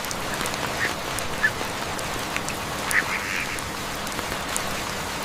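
Ducks quacking a few short times over a steady hiss of falling rain, with scattered drips.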